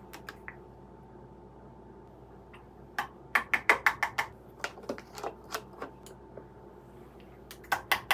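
Quick series of light clicks and taps from bottles and their caps being handled on a countertop, about two to three a second, starting about three seconds in and picking up again near the end.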